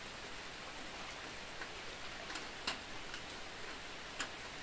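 Light rain falling on a river's surface: a steady hiss with a few scattered sharp ticks, the clearest about two and a half seconds in and again near the end.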